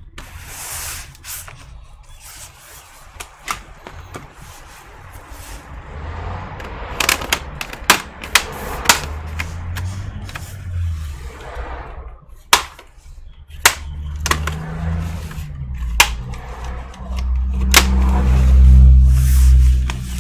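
Plastic bottom cover of a Dell Inspiron 15 5000 laptop being pried off: a series of sharp clicks and snaps from the clips, with scraping and handling noise in between. A low rumble of handling swells near the end.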